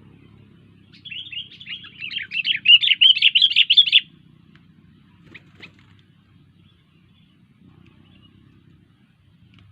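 Sooty-headed bulbul (kutilang) in full song: a fast run of chirping notes starting about a second in and lasting about three seconds, then two short single notes, over a faint low hum.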